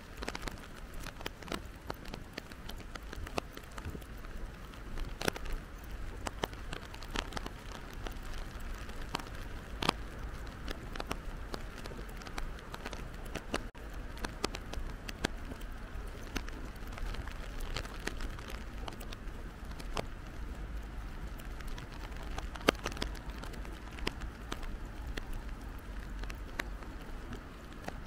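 Rain falling: a steady hiss with many sharp, irregular drop hits.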